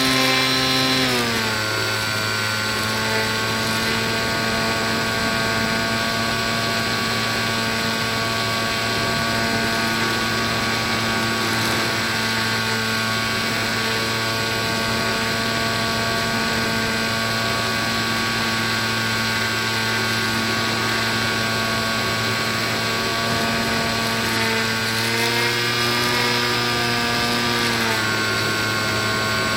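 Small RC plane's electric motor and 7x5 propeller running at a steady whine. The pitch drops as the throttle comes back in the first second or so, holds at cruise, rises with a burst of throttle about 25 seconds in, and falls back near the end.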